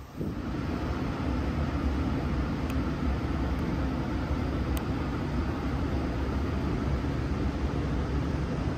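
Sydney Trains K-set electric train running at a steady speed: a continuous low rumble with hiss, and a couple of faint ticks.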